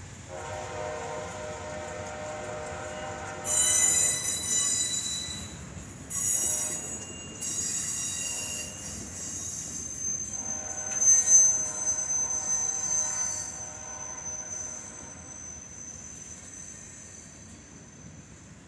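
Freight cars rolling past on steel wheels, the wheel flanges squealing in high, piercing bursts and then in one long drawn-out squeal that peaks about halfway through and fades toward the end. A lower steady tone sounds twice, for about three seconds each time.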